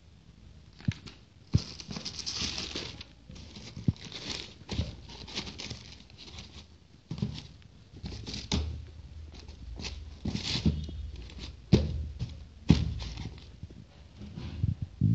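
Packaging being handled during an unboxing: rustling and crinkling of paper and box with irregular clicks, taps and knocks, the sharpest knocks around twelve and thirteen seconds in.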